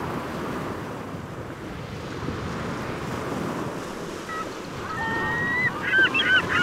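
Waves breaking in the surf, with wind on the microphone. About four seconds in, birds begin calling, becoming a rapid run of short, rising-and-falling calls near the end.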